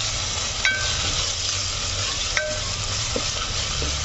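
Chopped onions and ginger-garlic paste sizzling in oil in an aluminium pot as they are fried and stirred with a wooden spoon. The spoon knocks against the pot a few times, with short metallic rings.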